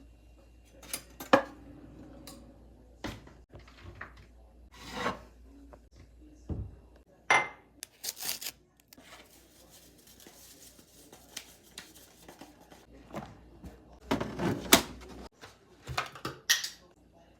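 Small household objects being handled: scattered clicks, light clinks and knocks with brief rubbing in between, the loudest about a second in, midway and near the end.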